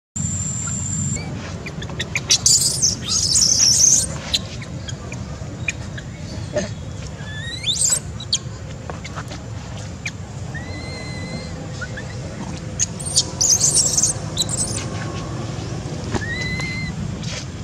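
High-pitched squealing cries from a newborn macaque, in two loud bursts of a second or so, with a sharp rising squeak in between and a few short whistled chirps.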